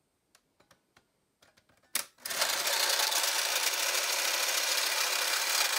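Kodak instant camera's shutter firing with a sharp click about two seconds in, then its ejection motor running steadily as it drives the Instax Square print out of the camera.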